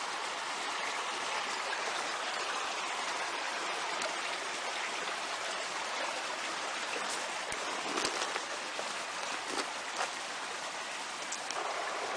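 Steady rush of running water, with a few faint ticks near the middle.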